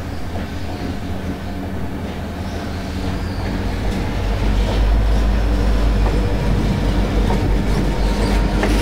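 EMD SD50 diesel locomotive, with an SD40-2 coupled behind it, approaching under power: a low, steady diesel engine sound that grows louder over the first few seconds as it nears, then holds.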